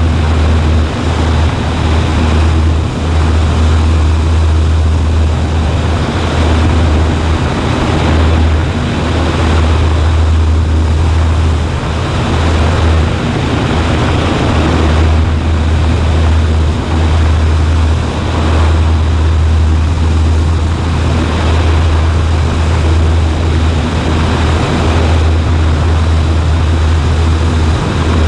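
Cessna 140A's flat-four piston engine and propeller running steadily, a constant drone with a strong low hum and rushing air noise.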